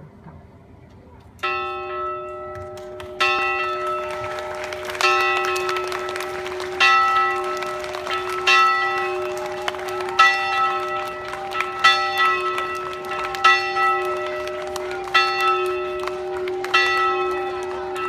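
Large cupola bell rung by pulling its rope: a stroke about every second and three-quarters, starting about a second and a half in, each ringing on into the next.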